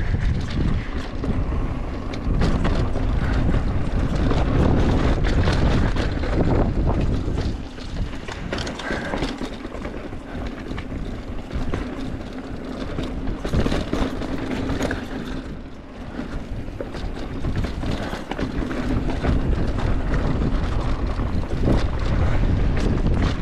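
Wind rumbling on the camera microphone while a mountain bike rides rocky singletrack, with tyres crunching over rock and the bike rattling in quick, uneven clicks. It eases off for a few seconds in the middle, then picks up again.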